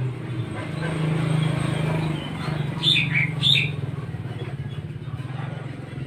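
An oriental magpie-robin gives a quick cluster of short, bright chirps about three seconds in, over a steady low hum.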